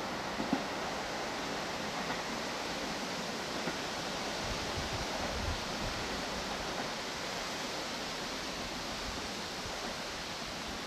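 Steady rain falling, an even hiss without break.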